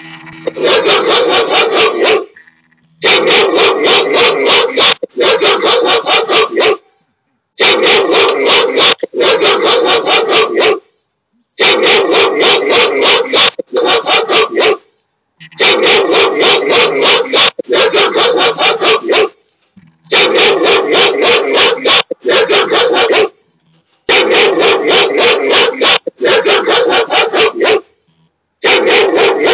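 An IP camera's built-in 'dog barking' alarm sound playing in a loop from its small speaker: loud runs of rapid recorded barks, each about a second and a half, coming mostly in pairs with short breaks between, repeating about every four seconds.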